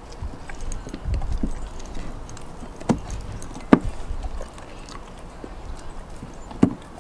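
Belgian Malinois gnawing a raw beef rib on a wooden deck, with about three sharp knocks as the bone and teeth strike the boards.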